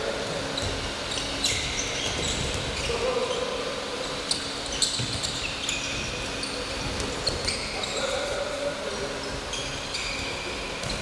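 Sneakers squeaking on a wooden sports-hall floor and a handball bouncing and being caught during a handball defence drill, with many short high squeaks and scattered sharp knocks, in a hall's echo with background voices.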